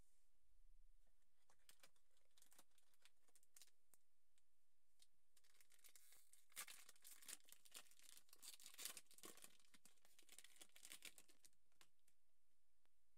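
Faint tearing and crinkling of a foil Pokémon booster pack wrapper being ripped open by hand, densest from about six and a half seconds in.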